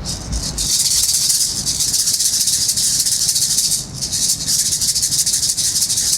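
A pair of uli uli, Hawaiian feathered gourd rattles, shaken rapidly: a loud, dense, steady rattle of the filling inside the gourds. It starts about half a second in and breaks off briefly near four seconds in.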